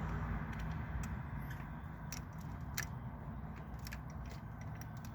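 Scattered light metallic clicks and taps of a socket and nut being handled while trying to start the nut on its stud, over a steady low hum.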